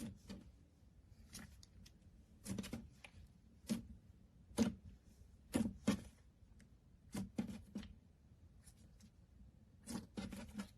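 Slime being squeezed and pressed by hand, giving short sharp clicks and pops, about one a second at uneven spacing, some in quick clusters.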